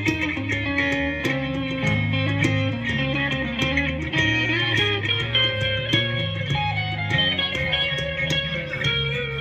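Live band playing amplified through PA speakers: electric guitar notes over a bass guitar line and a steady beat.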